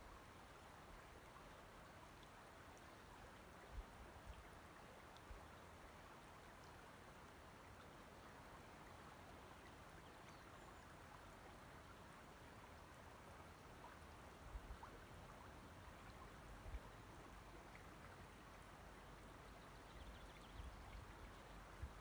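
Faint, steady lapping and trickling of shallow loch water over shoreline pebbles, with a few soft low bumps here and there.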